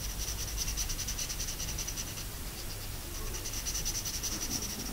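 Felt-tip marker scratching on paper in quick, even back-and-forth colouring strokes, easing briefly about halfway through.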